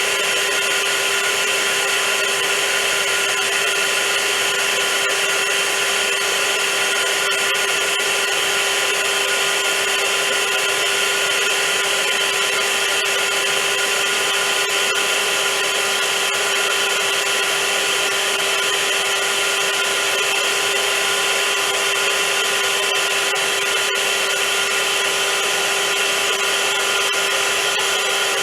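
Vacuum cleaner running steadily: an even rush of air with a constant motor whine and no change in pitch or level.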